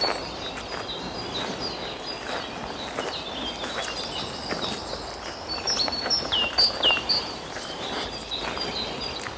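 Woodland birdsong: several small birds repeat short high notes, and a clear downward-sliding whistle comes twice just past the middle. Underneath are a steady outdoor hiss and scattered soft crackles.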